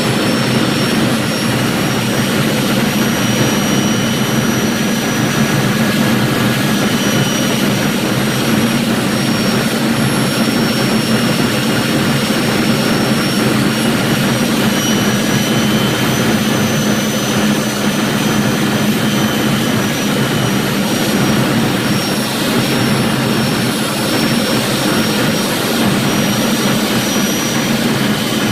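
Steady cabin noise of a Jet Provost in flight, heard from inside the cockpit: its Viper turbojet running at a constant setting over rushing airflow, with a thin, steady high whine on top.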